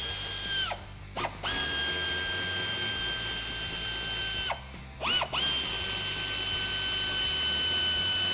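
Pneumatic air ratchet with an 8 mm socket backing out wheel-well liner bolts: a steady high whine in bursts of a few seconds, each rising as it spins up and dropping off when the trigger is released, with short blips between.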